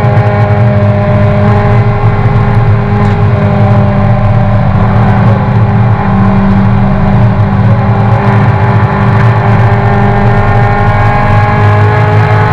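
A Toyota racing car's engine running hard at high revs, heard loud inside the stripped-out cabin as a steady drone. A little past the middle the sound dips briefly, and then the pitch climbs slowly as the car accelerates.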